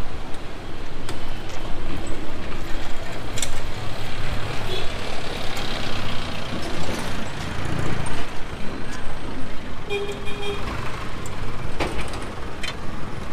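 Busy city street traffic: vehicle engines running and passing, with a brief horn toot about ten seconds in and a few sharp clicks.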